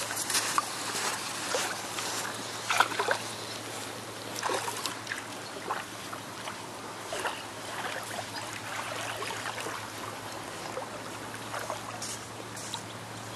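Shallow sea water splashing and trickling as a child wades, in irregular small splashes, the loudest a few seconds in. A steady low hum runs underneath.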